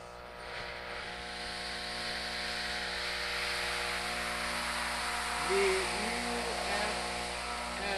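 Electronic experimental soundscape: a steady hum of several held tones under a hiss that swells up about half a second in. Around five and a half seconds in, short warbling tones slide up and down over it.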